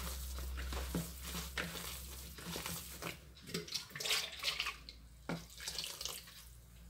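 A hand squeezing and stirring wet semolina dough in a plastic bowl, in irregular wet squelches and scrapes against the bowl. A low hum sits under the first couple of seconds.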